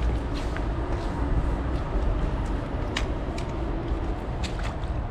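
Steady low outdoor rumble with a few faint clicks, one of them about three seconds in.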